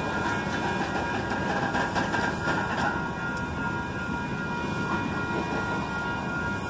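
Freight train of tank cars rolling past: a steady rumble and clatter of the wheels on the rails, with a few steady high-pitched tones over it.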